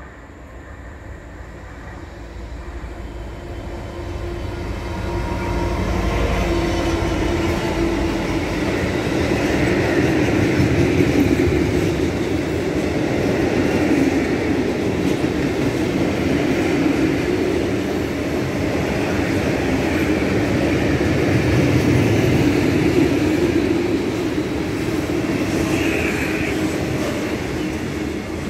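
Class 66 diesel locomotive with a two-stroke V12 engine approaching and passing, getting louder over the first several seconds. It is followed by a long rake of covered steel-coil wagons whose wheels run steadily over the rails until the end of the train goes by.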